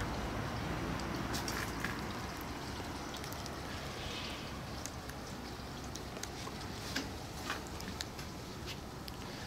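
Outdoor background noise: a steady low rumble with scattered faint clicks and ticks.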